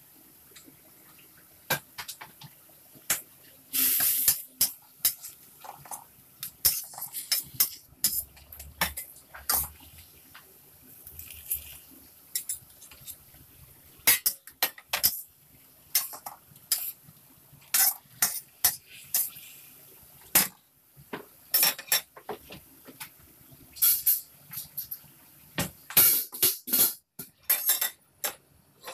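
A metal spatula scraping and clinking irregularly against a stainless steel wok as minced pork and eggplant are stir-fried, with some sizzling. Later a domed metal lid is set on the wok.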